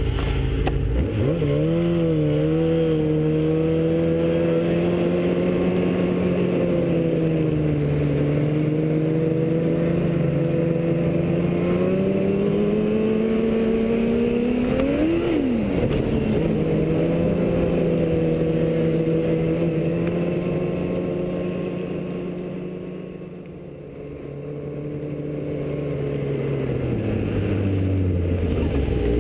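Yamaha snowmobile engine pulling away and running at steady trail speed. Its pitch rises from low about a second in, climbs and falls once in a brief rev about halfway, and the engine goes quieter for a few seconds as the throttle is eased off about three-quarters of the way through before picking up again.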